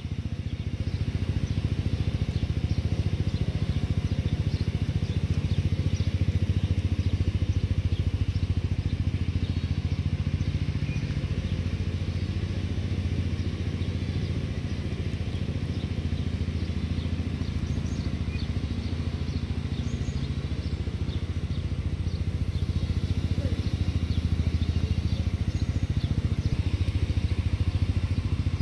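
A motor running steadily with a low hum, with faint scattered ticks over it.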